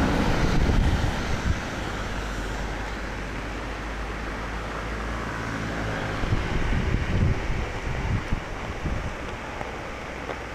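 Steady rush of typhoon rain and wind, louder for the first second and a half, with wind buffeting the microphone in uneven gusts through the second half. Muddy floodwater rushing down a swollen creek may be part of the steady rush.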